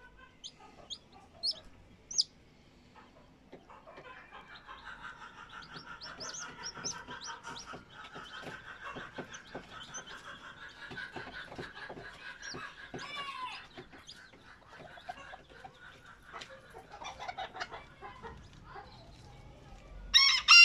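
Barbu d'Anvers bantam chicks peeping: a few sharp, high, falling peeps at first, then a dense chorus of chirping with scattered clicks. Right at the end an adult bantam starts a loud crow.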